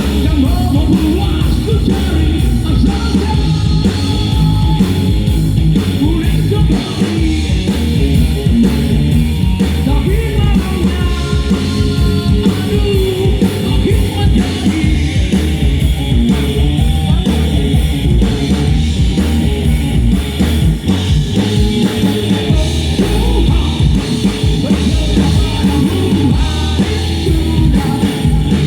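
A live band playing loud rock music at a sound check, drum kit and electric guitar going continuously.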